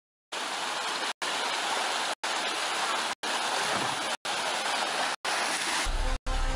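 Water rushing down an open water slide chute, a steady hiss broken by short silent gaps about once a second. Near the end a low rumble and faint steady tones join it.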